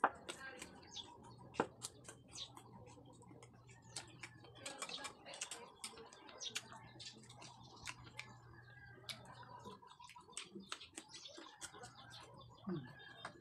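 Close-up eating sounds: a quick, irregular run of small clicks and smacks from chewing soft papaya, with a spoon tapping and scraping in a ceramic bowl.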